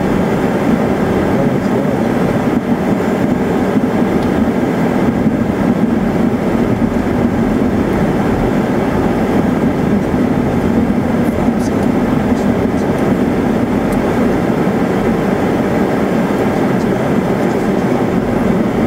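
Steady cabin noise inside an Eclipse 500 very light jet as it taxis, its twin Pratt & Whitney PW610F turbofans at idle: an even, unbroken rumble.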